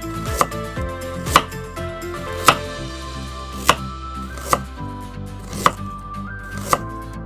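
A small kitchen knife dicing a carrot on a wooden cutting board: seven sharp chops about a second apart.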